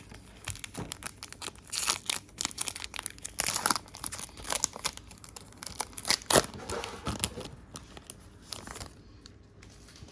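A trading-card pack wrapper being torn open and crinkled by hand, with irregular crackles that are loudest around two, three and a half and six seconds in, fading out near the end.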